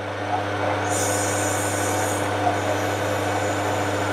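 Metal lathe running with a wide parting tool plunged into the spinning shaft, cutting a groove: a steady motor hum with the hiss of the cut over it, a higher, brighter hiss from about one to two seconds in.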